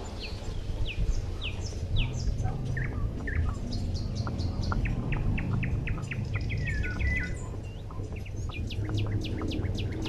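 Small birds chirping: many short chirps that drop in pitch, coming several a second in the middle, over a low steady rumble.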